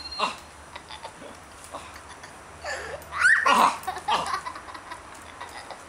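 A young child laughing in a few short bursts, loudest a little past the middle.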